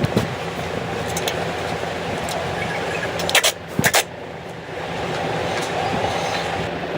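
A car running steadily, with a few sharp clicks or knocks about three and a half to four seconds in.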